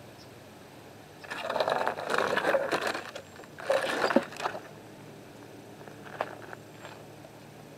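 Metal scraping and rattling as an old brake caliper and a caliper compressor tool are handled and set in place, in two bursts, the first about a second in. Later come a couple of faint clicks as the compressor's screw handle is turned to push the piston back.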